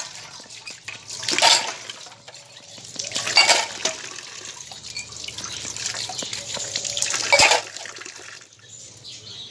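Tap water running into a steel bowl as stainless-steel cups and tumblers are rinsed in it, with three louder bursts of splashing and metal clinking.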